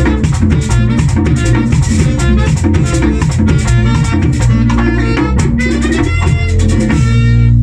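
Live Dominican típico band playing an instrumental passage: accordion, tambora, congas and saxophone over a busy shaker-and-drum rhythm. Near the end the rhythm stops and the band holds a final chord.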